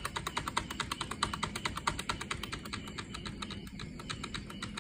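A computer keyboard key tapped rapidly and repeatedly, about seven or eight taps a second, to get into the BIOS as the PC boots. The tapping thins out and stops about three seconds in.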